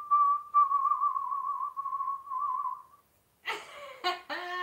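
A person whistling one high, held note that wavers slightly and breaks a few times, for about three seconds. After a brief pause a voice starts speaking.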